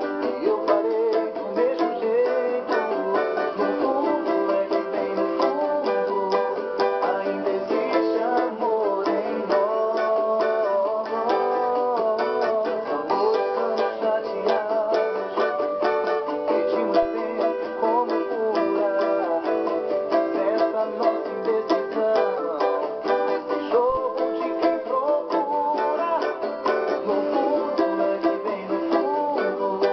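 Cavaquinho strummed rapidly and steadily in a pagode rhythm, playing the chords of a Brazilian pagode song.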